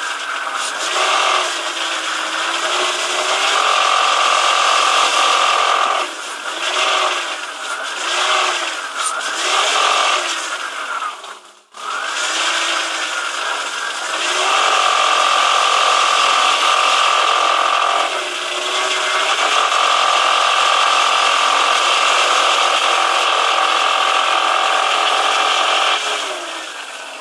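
BMW E46 323i M52TU 2.5-litre straight-six, cold, revved up and down repeatedly and then held steady at low revs (about 1600–2100 rpm), running with a buzzy rattle. The owner hears this rattle only while the engine is cold and in that rev band, gone once it is warm, and places it under the engine towards the gearbox; its cause is unknown.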